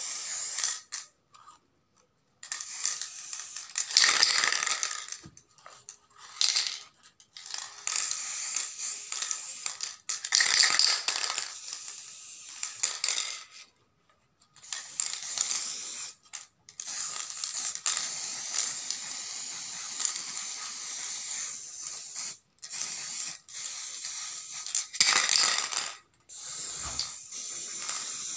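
Aerosol spray-paint can hissing in repeated bursts of varying length, stopping and starting with short pauses.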